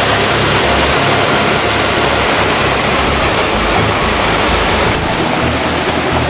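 Loud, steady rushing of a waterfall in a narrow gorge, a dense wash of falling water with no pauses.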